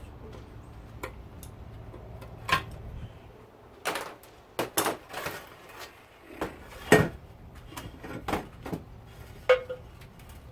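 Hand-tool teardown of a garment steamer: a series of irregular metallic clinks and knocks as a screwdriver works and small metal parts and wires are handled, the loudest clank about seven seconds in. A low background hum stops about three seconds in.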